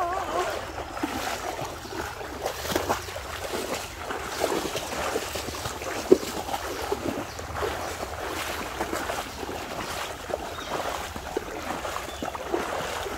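Legs wading through knee- to thigh-deep water, sloshing and splashing with each stride; one sharper splash about six seconds in.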